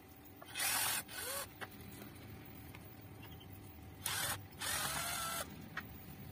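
Plastic scraping and creaking as a screwdriver pries apart the two halves of a cordless grass trimmer's plastic battery-handle housing: four short scrapes, two about half a second in and two about four seconds in.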